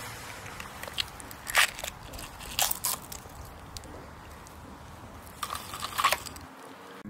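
Lit sparkler burning in polystyrene foam beads: a faint steady fizz broken by about six sharp crackles and pops, the loudest about one and a half seconds in.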